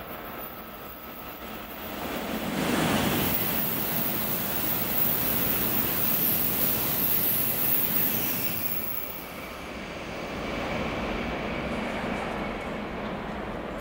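N700S (N700 Supreme) Shinkansen passing through the station at speed: a rush of air and rolling noise with a strong high hiss swells about two seconds in, holds for several seconds and fades around nine seconds. A softer rise of train noise follows near the end.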